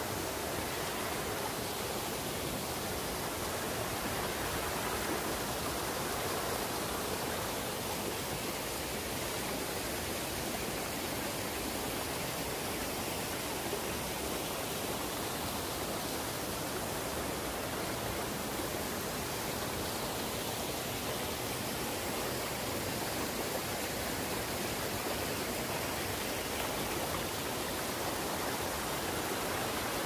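Two-tier waterfall pouring over rocks into a pool: a steady, even rush of falling water.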